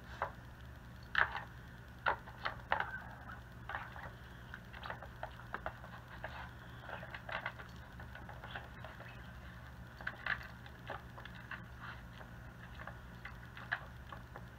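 Irregular light clicks and knocks from the hard plastic layers of an Outward Hound Lickin' Layers puzzle toy as a dog noses at it, hunting out treats, with a few sharper knocks among them.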